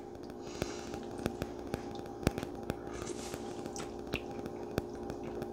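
Quiet eating sounds: faint sharp clicks and taps, roughly two a second and the strongest about two seconds in, as ramen broth is spooned and tasted. A steady low hum runs underneath.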